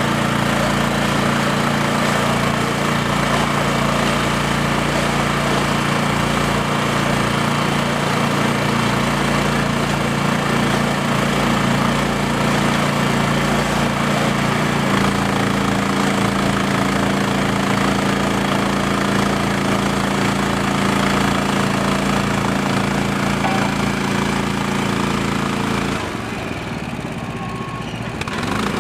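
Power cart's engine running steadily under load while driving a round baler, its pitch shifting slightly about halfway through. It goes briefly quieter near the end, then returns.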